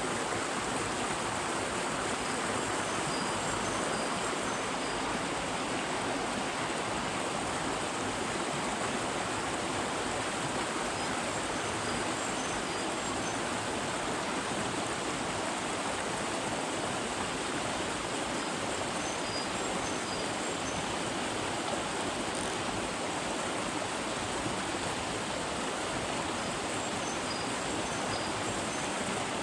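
Small mountain stream running steadily over rocks, with rushing water. Faint short high notes come in small groups every several seconds.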